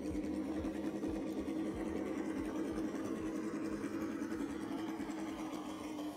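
Axial SCX10 RC rock crawler's electric motor and gears whining steadily as it crawls slowly over rocks.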